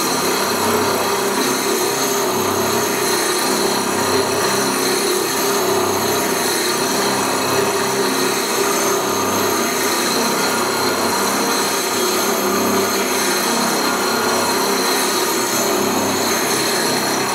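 Marui concrete cylinder end grinder running on automatic feed, its grinding disc working across the ends of three 4x8-inch concrete cylinders: a steady, even grinding with a constant machine hum.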